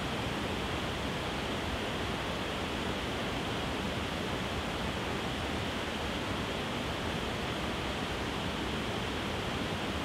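Waterfall spilling over wide, low rock ledges: a steady, even rush of falling water that does not change.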